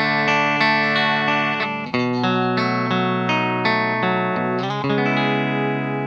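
Electric guitar's bridge single-coil pickup, a Bare Knuckle '63 Veneer Board, played clean through an amp-sim preset with a touch of effects. It plays a quick run of chords, strums again about two seconds in, and lets a last chord ring and fade.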